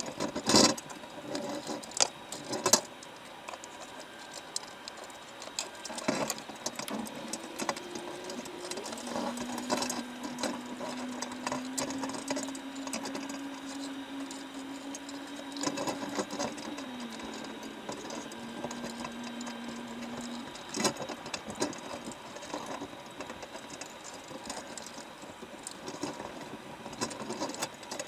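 Underwater clicking and crackling as crabs pick at chicken bait and clamber on a wire crab trap, with a few sharp clicks in the first three seconds. A faint hum comes in about nine seconds in, steps down about seventeen seconds in, and stops about twenty seconds in.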